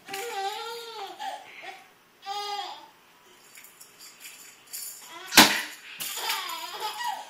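High-pitched playful vocal sounds, drawn out and wavering up and down in pitch, come in three stretches, with a single sharp slap or knock about five seconds in that is the loudest sound.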